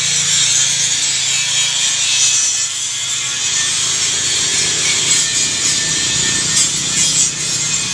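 Hollow steel pipe frame dragged along a concrete and dirt floor, giving a continuous rough scraping.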